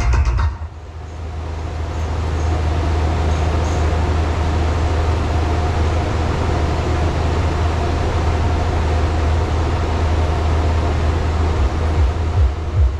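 Deep, steady rumbling drone with heavy sub-bass played through a large outdoor PA system's subwoofers during a sound test, swelling up over the first couple of seconds; near the end, pulsing bass beats come in.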